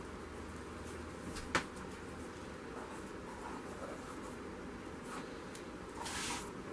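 Quiet handling noises as a wet painted canvas is propped up on sticks over plastic sheeting: one sharp click about one and a half seconds in and a short scuff near the end, over a low steady hum.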